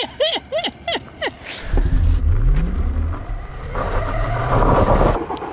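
A quick run of six or so short, falling chirps, then, heard from on the bike, a home-built hybrid dirt bike pulling away: a low drone that climbs in pitch under heavy wind rumble, cutting off suddenly near the end.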